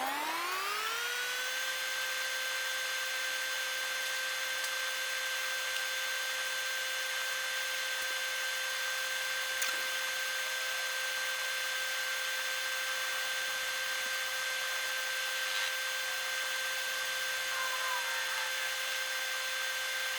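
Electric power tool motor spinning up with a rising whine, then running at a steady high pitch without a break.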